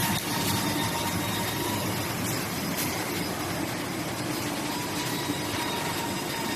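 Primer wide belt sander running steadily: an even machine hum and hiss with a faint high whine.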